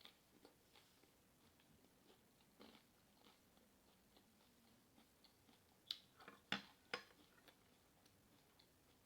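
Soft chewing of Doritos nachos, with a short cluster of louder crunches between about six and seven and a half seconds in.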